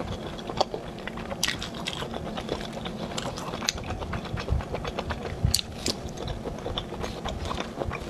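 Chewing and biting of spicy skewered food, a continuous run of small irregular crackles and clicks with a few sharper crunchy snaps.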